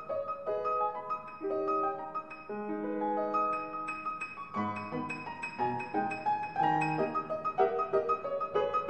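Background piano music: a solo piano playing a steady flow of single notes and chords.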